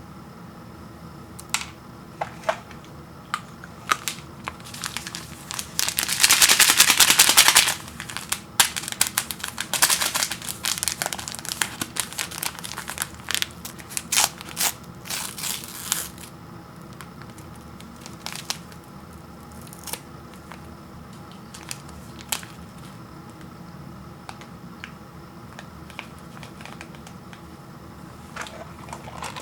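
Instant ramen cup packaging being handled and opened: scattered crinkles and clicks, a loud tearing crinkle lasting about two seconds some six seconds in, then busy crinkling that thins out after about sixteen seconds.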